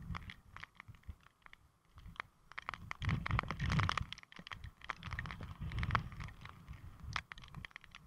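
Typhoon wind gusting and buffeting the camera microphone in low rumbles, loudest a few seconds in, with many irregular sharp taps and crackles over it.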